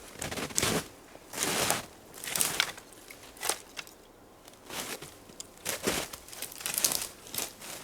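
Dry branches and brush crunching and crackling in a dozen or so irregular short bursts, as cut branch pieces are handled and added to a wood pile.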